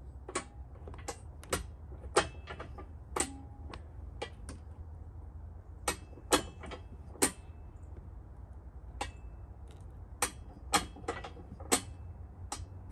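A string of sharp, irregular clicks and ticks, roughly one or two a second and uneven in loudness, over a low steady rumble.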